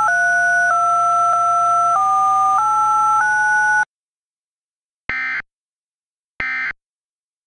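A string of telephone-style DTMF dual tones, each pair held about half a second before stepping to the next, cutting off suddenly about four seconds in. After a second of silence come two short buzzy data bursts, the EAS end-of-message (NNNN) signal, about a second apart.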